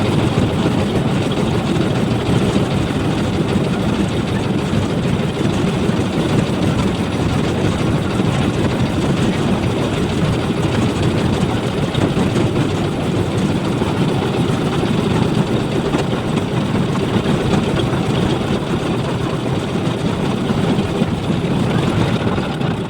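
A loud, steady engine running without a break, mostly low in pitch.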